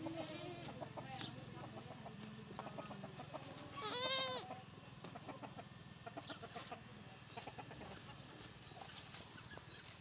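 A goat bleats once, a quavering cry just under a second long, about four seconds in; scattered clicks and rustles come before and after it.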